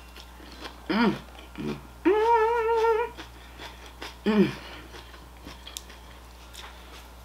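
A woman's closed-mouth 'mmm' sounds of relish while chewing food: a short falling 'mm' about a second in, a long high wavering 'mmm' at about two seconds, and another falling 'mm' just after four seconds.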